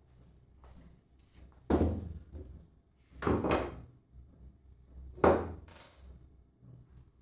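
A handful of knocks and thunks on a wooden worktable as a cordless drill and case parts are set down and handled, the sharpest about two seconds in and just after five seconds in.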